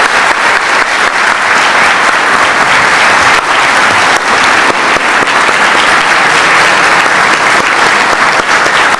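Sustained applause from a large audience clapping steadily.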